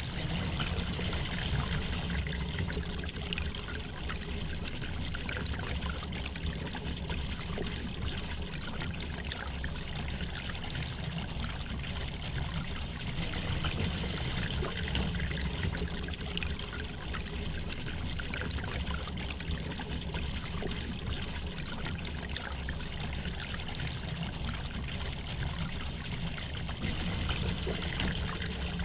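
River water flowing gently over stones, a steady trickling and babbling with small splashes throughout.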